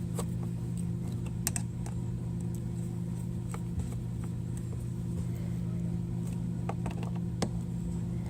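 Phillips screwdriver snugging up the fine-thread mounting screws of an oil separator can: scattered small metallic clicks and taps, the sharpest about a second and a half in and again near the end, over a steady low hum.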